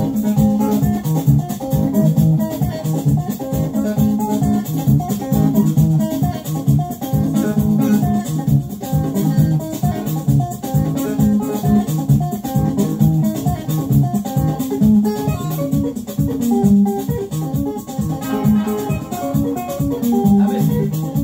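Upbeat band music: guitar lines over bass guitar and a steady beat with shaker and drums.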